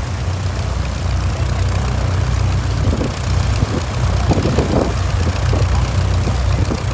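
de Havilland Tiger Moth biplane's engine idling with a steady low drone, with a few brief rougher bursts about halfway through.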